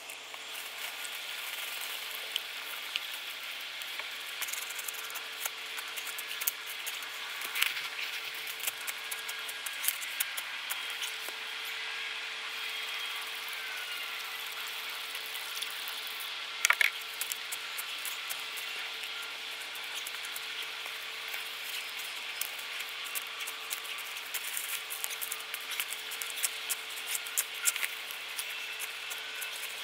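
Water poured onto a campfire's hot embers and ash, hissing and sizzling steadily with scattered crackles as a stick stirs the wet ash: the fire being doused out.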